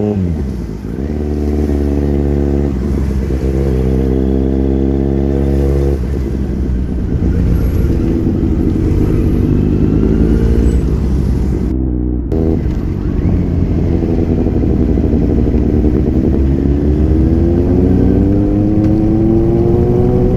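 Kawasaki Z900 inline-four engine under way. The engine pitch drops sharply just after the start as it slows, holds fairly steady, then climbs from about sixteen seconds in as the bike accelerates.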